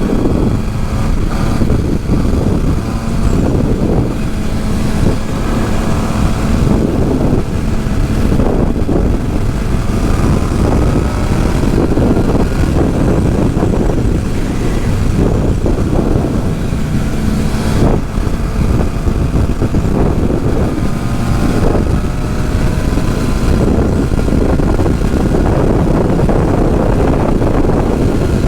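2018 Yamaha MT-09's 847 cc inline-three engine heard on the move, its pitch climbing in several long sweeps as the bike accelerates, over a steady rush of wind and road noise.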